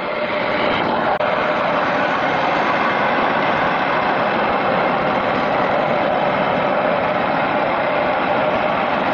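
Homemade wood lathe running with no workpiece: its electric water-pump motor spins the spindle through a V-belt, making a steady whirr.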